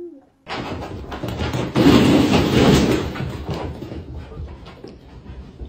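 Plastic ball-pit balls rattling and rustling against each other as a dog burrows among them, loudest about two seconds in and then quieter.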